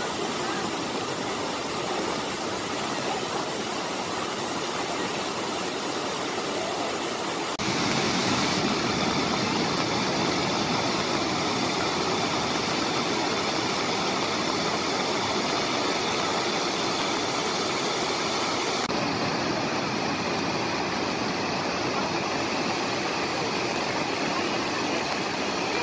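Floodwater pouring over a concrete spillway weir and churning below it, a steady rushing of water that gets louder about seven and a half seconds in.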